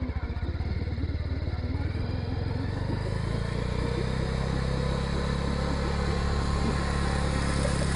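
A vehicle engine running. Its separate firing beats run together into a steadier, slightly louder sound from about three seconds in as it speeds up.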